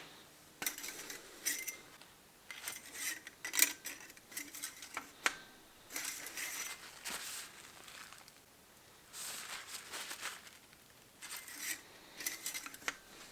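Irregular clinks, taps and scrapes of metal tools and parts being handled on a workbench, in short clusters with brief pauses between.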